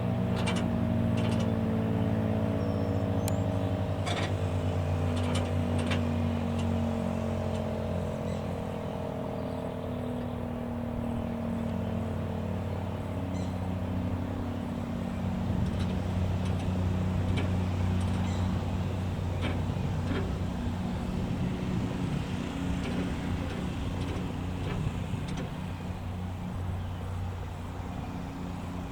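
Outdoor tornado warning sirens winding down after the alert: several tones glide slowly lower together and fade out over the first half, over a steady low hum.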